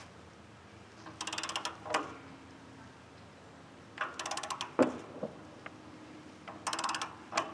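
Ratchet of a torque wrench clicking rapidly in three short runs as it is worked on a band sawmill's blade-tension bolt, each run ending in a single sharp knock. The blade is being tightened.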